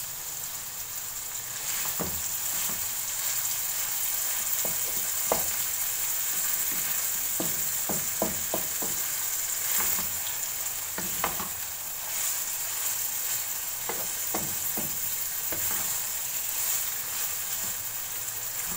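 Raw minced meat and onions sizzling in hot oil in a nonstick wok, stirred with a wooden spatula that scrapes and knocks against the pan in scattered strokes. The mince is in its first frying stage, still pink, being cooked until it turns white and loses its raw smell.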